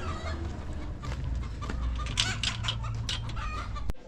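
Chickens clucking in a run of short, sharp calls over a steady low hum.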